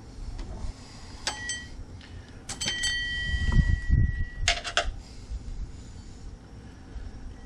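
Metal tools and engine parts clinking against each other in a few sharp strikes, one leaving a clear ringing tone for about a second and a half, with dull handling bumps in between, as the water pump pulley and its bolts are worked loose.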